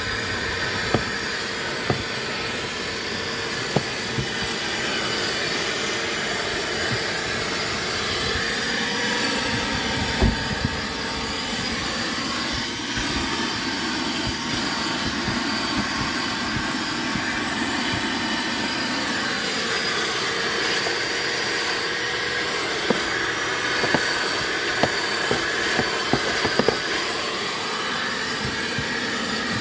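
Shop vac running steadily, its hose and nozzle sucking along a car's floor carpet, with scattered sharp clicks. The pitch of its hum dips lower for several seconds midway, then comes back.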